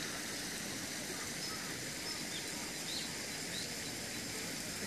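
Steady outdoor background hiss by a lake, with a few faint, short, high bird chirps in the middle.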